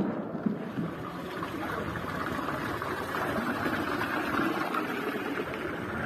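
Steady murmur of a crowd: many voices blending together, with no single voice standing out.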